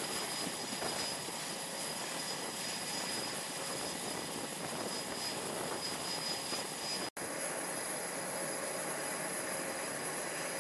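Jet aircraft engines running: a steady rushing noise with a high, level whine over it. It drops out abruptly for an instant about seven seconds in and resumes at once, slightly brighter.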